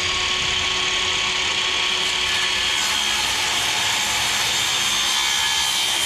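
Hercules 20V cordless circular saw running at full speed and cutting across a wooden top rail, a steady high whine. Its pitch drops slightly about five seconds in as the blade takes more of the wood.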